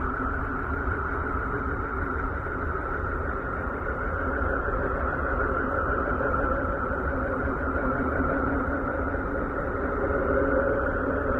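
Radio emissions from Uranus, picked up by the Voyager 2 spacecraft and converted into sound: a steady, noisy drone with a whistling band higher up and a low rumble beneath, shifting slowly in pitch.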